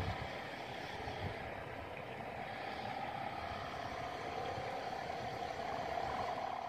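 Sawangan, the bamboo hummers on Javanese kites flying overhead, droning together: one steady humming tone over a rough hiss. Wind buffets the microphone underneath.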